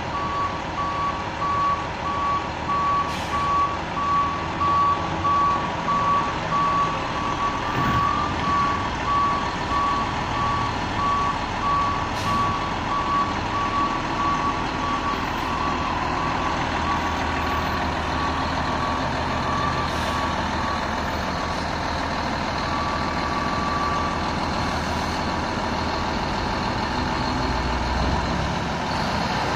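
Front-loader garbage truck's reversing alarm beeping repeatedly at one pitch over its running diesel engine as the truck backs up. The beeping stops a few seconds before the end, leaving the engine running.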